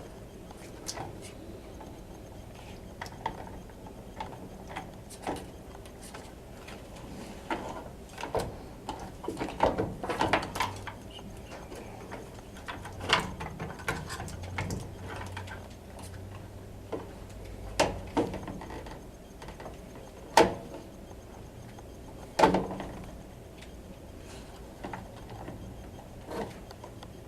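Irregular clicks, taps and knocks of small parts and tools being handled, with a sharp knock about twenty seconds in.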